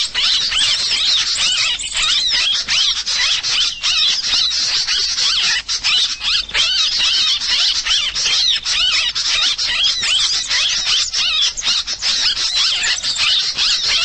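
Bird-luring call (suara pikat) played loudly: a dense, unbroken stream of rapid high-pitched chirps and squeaks, used to draw wild birds to a trap perch.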